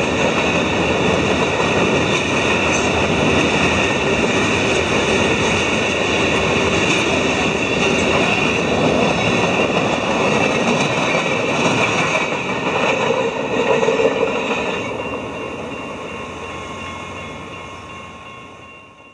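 Freight cars of a mixed freight rolling past on steel rails, a loud steady rumble and clatter of wheels, with steady high ringing tones over it. The sound peaks as the last empty well cars go by about two thirds of the way in, then fades away once the train has passed.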